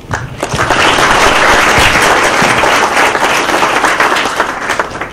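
A roomful of people applauding a speaker. The clapping builds within the first second, holds, and thins out near the end.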